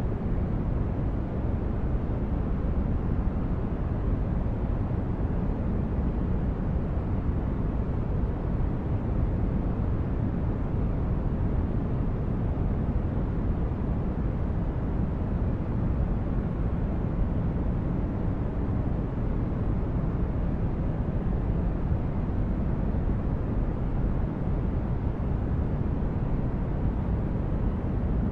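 Steady relaxation noise for sleep: a constant, deep rumbling hiss, heaviest in the bass, that never changes.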